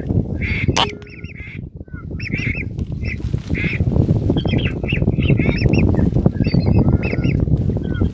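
Many short, overlapping honking calls of waterfowl, several a second, over a heavy rumble of strong wind on the microphone. The calls thin out briefly about a second in.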